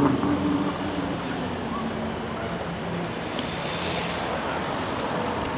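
Street traffic noise: a steady wash of road and tyre noise, with a car engine hum that fades away in the first second or so.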